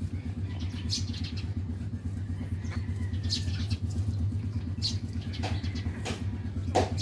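Newborn Shih Tzu puppies giving short, high squeaks while nursing, several times, the loudest near the end. Under them runs a steady low mechanical hum with a fast, even pulse.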